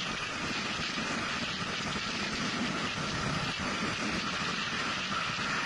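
Steady rush of wind and road noise picked up by a camera on a moving vehicle, with a low engine hum underneath.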